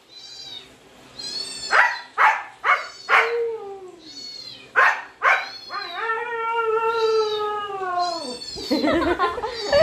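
A cat meowing over and over: a run of short meows, then one long drawn-out meow starting about six seconds in that falls away at the end.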